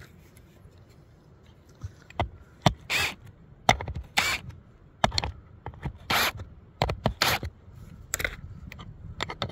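Metal track gauge scraping and clicking against the rails of 7½-inch gauge track as it is slid along and seated. A string of short scrapes and sharp clicks starts about two seconds in.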